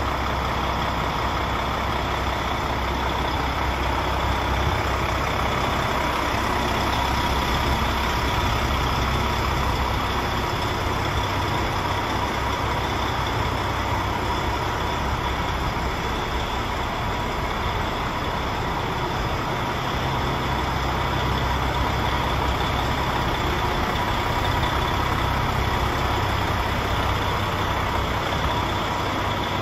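DAF XF105's Paccar MX 460 hp Euro 5 turbo diesel, a straight-six, idling steadily at a constant pitch.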